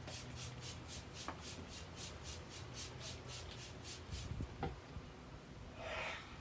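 Hand-pumped plastic trigger spray bottle misting water onto potting soil in a quick run of short squirts, about five a second, stopping about four seconds in. Near the end comes a short rustle of a hand patting the damp soil down.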